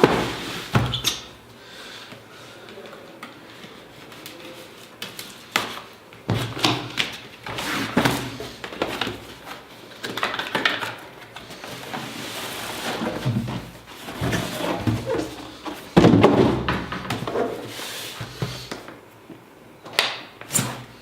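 A drone's retail packaging being opened and handled: rustling and scraping of cardboard and packing, with irregular knocks and thumps as the box and its lid are moved, one louder thump about 16 seconds in.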